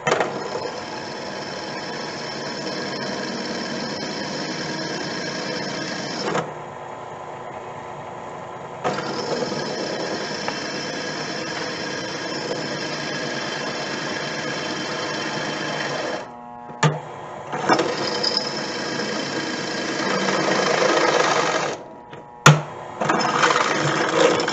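Electric drill running with a Black Widow twist bit cutting into a metal flange: a steady motor whine with cutting noise. It eases off about six seconds in, picks up again, and stops briefly twice in the second half, with one sharp click. The bit cuts without binding.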